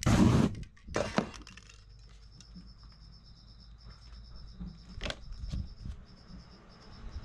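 A brief whoosh of flame from lit aerosol spray paint, with a second short burst about a second in. It then goes quiet apart from a faint, high, rapidly pulsing tone and a couple of light clicks.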